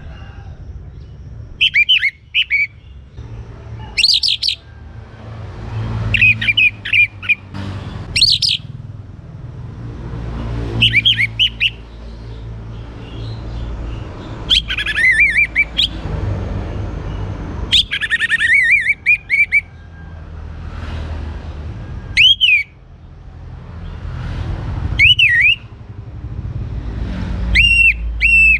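Young orange-headed thrush singing: short phrases of bending whistles and trills, about one every two to three seconds, over a steady low rumble.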